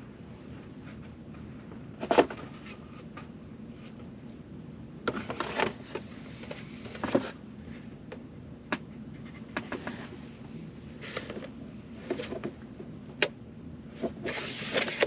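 Plastic rear trim panel of a 2022 Ford Explorer's center console being handled while its power-point connectors are worked loose: scattered plastic clicks, knocks and short scrapes, with one sharp click near the end.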